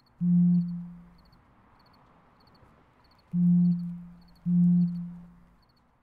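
A phone's message notification buzzing three times, once for each incoming text: a short low buzz just after the start, then two more about three and four and a half seconds in, each fading out.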